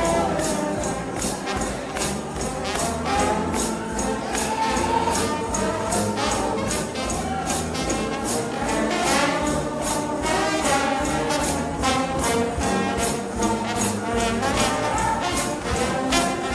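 Gospel shout band of trombones and other brass playing a fast, loud number, with tambourine and drums keeping a steady beat.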